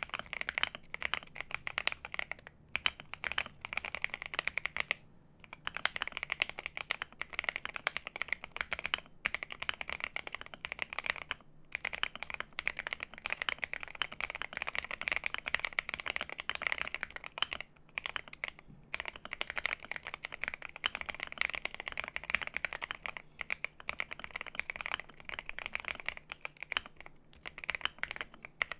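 Akko MOD005 gasket-mounted mechanical keyboard, built with its aluminum plate, being typed on at a steady fast pace: dense key clacks with a few brief pauses.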